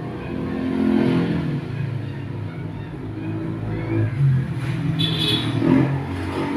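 A motor vehicle engine running, with its pitch shifting up and down as it revs.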